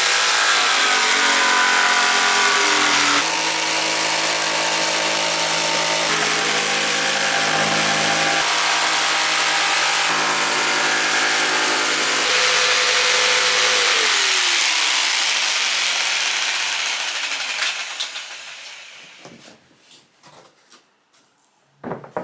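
Electric jigsaw cutting through hardboard: the motor runs steadily with a loud rasping cut for about fourteen seconds, then is released and winds down, its pitch falling as the sawing dies away. A few small knocks follow near the end.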